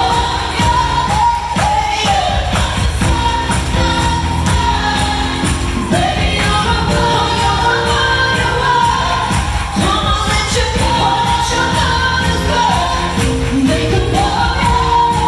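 Live pop song: two female singers over drums, piano, a string section and a backing choir, heard loud through the arena sound system.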